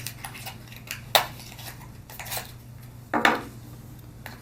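Small hard plastic accessories and packaging from a vape kit's box being handled, giving several separate clicks and clatters; the loudest knocks come about a second in and about three seconds in.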